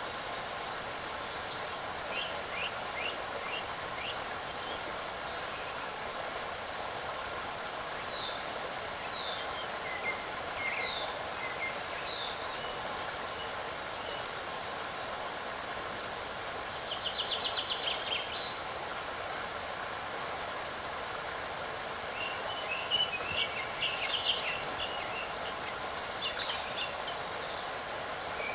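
Forest ambience: a steady, even background rush with small birds chirping and calling on and off. About halfway through comes one rapid trill, and near the end a busier run of calls.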